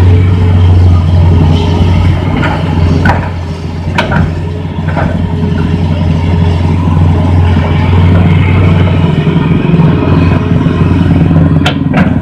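Hitachi Zaxis 210 MF excavator's diesel engine running steadily under hydraulic load as the machine swings and digs in mud, with a few sharp knocks about three and four seconds in and again near the end.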